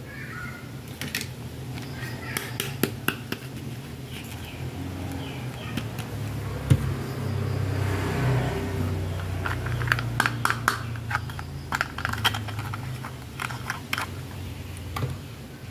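Small hard plastic toys and accessories clicking and tapping as they are handled and set down, in irregular clusters of sharp clicks, over a steady low hum.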